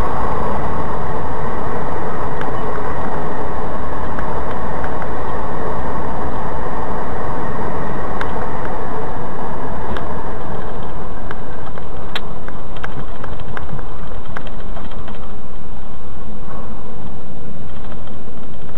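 Steady road and engine noise of a moving car, with a run of light clicks and knocks in the second half.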